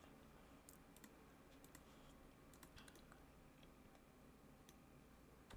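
Faint, irregular clicks of a computer keyboard and mouse, a handful spread over a few seconds, over near silence.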